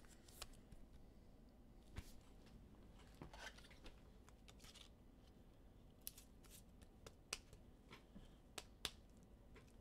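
Near silence with faint, scattered clicks and rustles from trading cards being handled, about eight soft ticks spread over the stretch.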